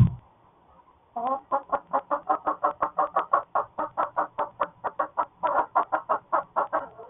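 Hen clucking rapidly, about six clucks a second, after laying an egg: the hen's egg song. A short low thump comes right at the start.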